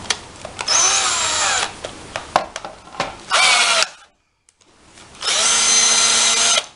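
Cordless drill driving a blind-rivet adapter, running in three short bursts as rivets are set into a metal panel, with clicks and knocks between the bursts. The motor's pitch wavers during the first, longest burst.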